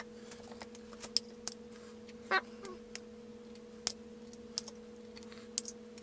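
Sporadic light clicks and taps, as of small lathe parts being handled during cleaning, over a steady hum.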